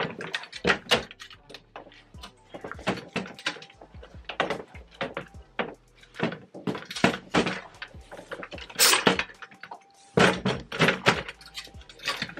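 Tubular metal frame of a two-wheeled deer cart being handled and its telescoping handle pulled out: irregular clicks, knocks and rattles of metal tubes and fittings, with a few louder clatters past the middle.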